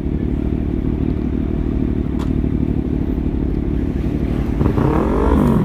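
Kawasaki ZX-6R 636 inline-four motorcycle engine idling steadily, with a brief rising-and-falling tone near the end.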